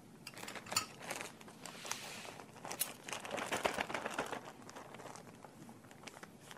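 Clear plastic zip-top bag crinkling as it is handled, a run of small crackles that is busiest a little past the middle.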